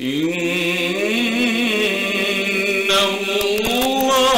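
A solo male voice reciting the Quran in the slow, melodic mujawwad style, holding one long drawn-out note. The pitch glides up as the note begins, holds with a slight waver, then moves through ornamented turns near the end.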